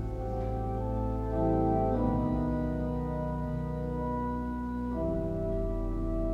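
Church organ playing slow, sustained chords over a low pedal bass, the chord changing a few times.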